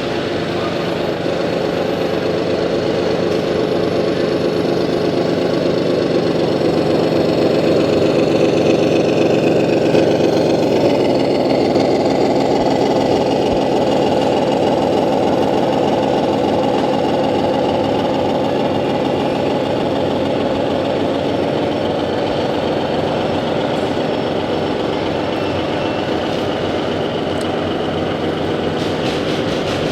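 Truck engine sound running steadily near idle, settling to a slightly lower pitch about eleven seconds in.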